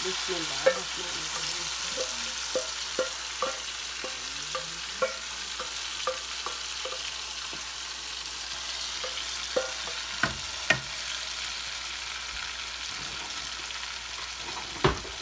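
Hot oil sizzling steadily as marinated mutton and its yogurt masala are poured into a wok of fried onions. Over it come irregular knocks and scrapes of a wooden spatula and the metal pot against the pan, many in the first half and a few louder ones later.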